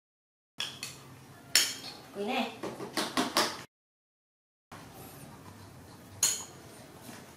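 A metal spoon clinking and scraping against a ceramic plate of mashed pumpkin and rice, in a few sharp clinks with a quick cluster in the middle. The sound cuts out to dead silence twice.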